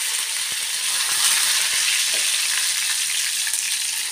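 Curry leaves sizzling steadily in hot oil with mustard seeds and cumin in a steel pan, the moisture in the freshly added leaves making the oil bubble and hiss as the tempering (talimpu) fries.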